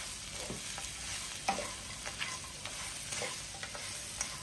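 Wooden spatula scraping and tossing crisp fried potato slices and anchovies in chilli sambal in a stone-coated wok, with strokes about once a second over a light, steady sizzle left in the pan after the gas has been turned off.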